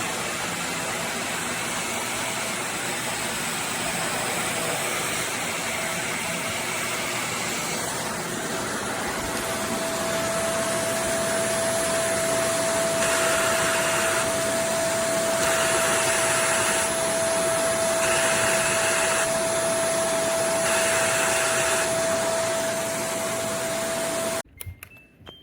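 Shark Stratos upright vacuum running steadily. A steady whine joins partway through, then the sound swells and eases about every two and a half seconds, as with back-and-forth vacuuming strokes. It cuts off abruptly near the end.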